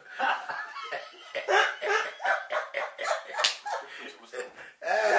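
Men laughing heartily in quick, repeated bursts, with one sharp slap about three and a half seconds in.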